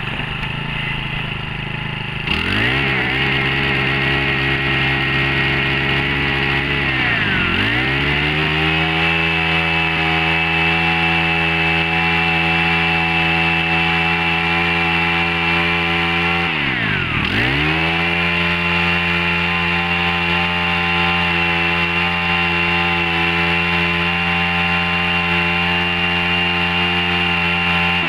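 Robin four-stroke 35cc brush-cutter engine, just pull-started, idling for about two seconds, then held at high revs. Twice the revs drop sharply and climb straight back, around a quarter and two-thirds of the way through. It has the smoother, unfamiliar note of a four-stroke rather than a two-stroke.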